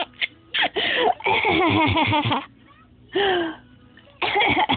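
A baby laughing in bursts, mixed with a woman's short coughs. It falls quiet for about a second and a half after the middle, and the laughing picks up again near the end.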